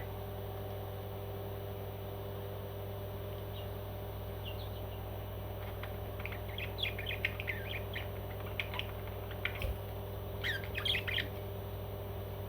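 A pet parrot giving short, high squawks and chirps in quick scattered runs, busiest in the second half, over a steady low hum.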